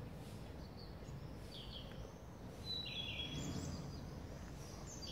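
Small birds singing a few short chirps and trills, over a steady low outdoor background rumble.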